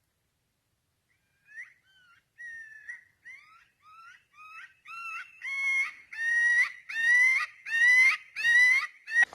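Predator call sounding a rapid series of high squealing distress cries, about two a second, starting faint and growing steadily louder, used to call in coyotes.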